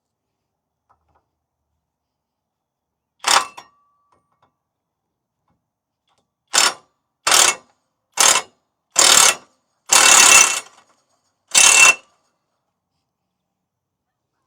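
A hand tool worked in short strokes on the mower: one rasping stroke, a pause, then five more in quick succession, the later ones longer.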